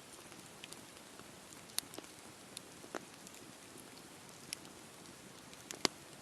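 Wood campfire burning: a soft steady hiss with scattered sharp crackles and pops, the loudest pop near the end.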